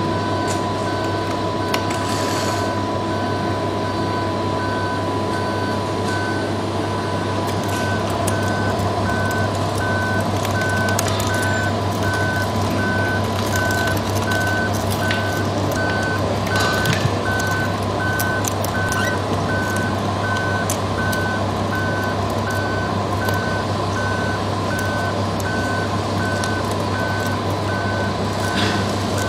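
Electronic reversing beeper of an RC scale construction model sounding a steady run of evenly spaced short beeps, over a steady low hum.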